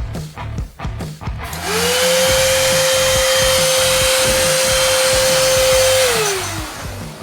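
Small vacuum cleaner's freshly repaired motor switched on, spinning up to a steady high whine with a rush of air, running for about four seconds, then switched off and winding down near the end.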